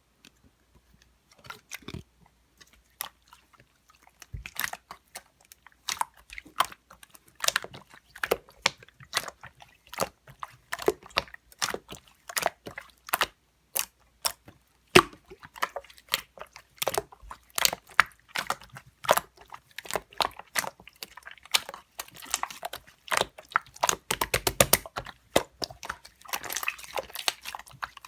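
Slime being squished and pressed by hand, giving irregular sticky clicks and pops. They start sparse and grow denser, with a run of fast crackling near the end.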